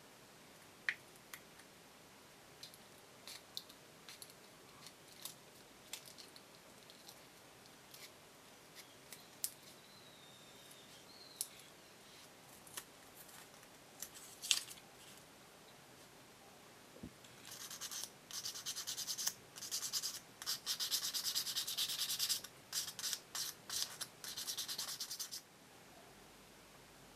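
A small, thin clear PVC piece being handled, with scattered light clicks and scrapes. About two-thirds of the way in come several seconds of quick, dense rubbing strokes, the piece being sanded until frosted; the strokes stop suddenly near the end.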